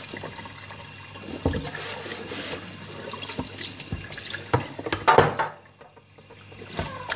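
Kitchen tap running into a sink as things are rinsed and handled, with a few knocks against the basin; the running water stops about five and a half seconds in.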